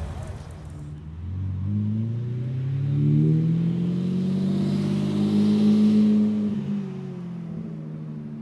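Orange supercar driving across a parking lot, its engine revving and climbing in pitch as it accelerates, then easing off near the end.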